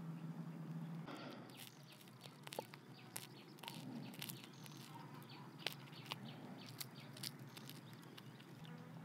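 A low steady hum stops about a second in. Then come scattered faint crackles and sharp ticks as fingers tear apart the crisp, charred skin and flesh of a whole fire-grilled fish.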